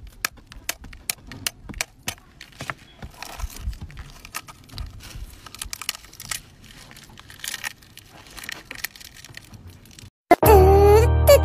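An eggshell being cracked by hand: a run of sharp taps, then faint crackling and crinkling as the shell is picked and peeled away. Near the end, loud children's music with singing starts.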